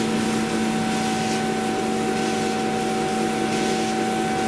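Chinese laser cutter raster-engraving a grayscale picture: a steady machine whine, a low hum with higher tones over it, on top of a steady hiss.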